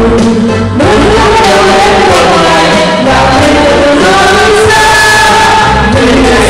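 Music: a song with a sung melody over bass and accompaniment, loud and continuous.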